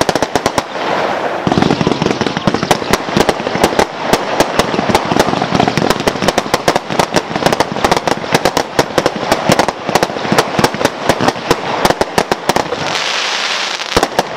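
Two Cafferata 'Tornado Power' fireworks fired together: a rapid, dense run of shots and bursts with crackle. The shots thin out near the end, leaving a hiss.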